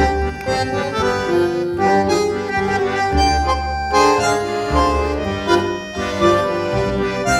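Background music: a held melody line that moves from note to note over a bass line.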